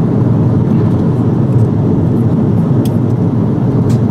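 Steady low cabin noise of an Airbus A330-200 airliner in flight: engine and airflow rumble heard from inside the cabin, with a couple of faint ticks near the end.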